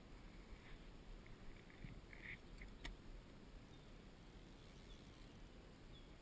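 Near silence: a faint low outdoor rumble, with one sharp click about three seconds in.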